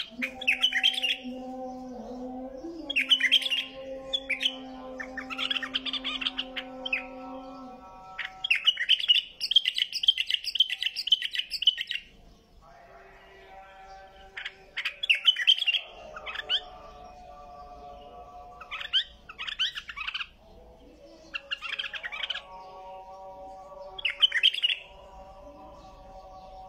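White-eared bulbul singing: short, bright chirping phrases every couple of seconds, with one longer run of rapid chatter in the middle. A steady low hum sits underneath for the first several seconds.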